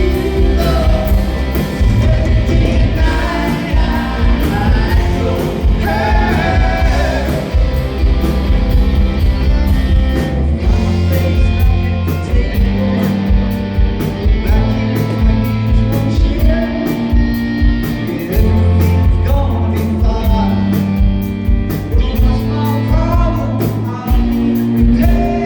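Live rock band playing, with a singer's voice over guitars, bass and a steady drum beat.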